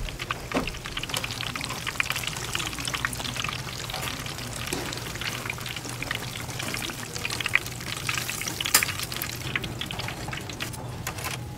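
Battered pieces deep-frying in hot oil: a dense, steady crackle and sizzle, with a few sharper pops, louder about half a second in and again near eight and nine seconds in.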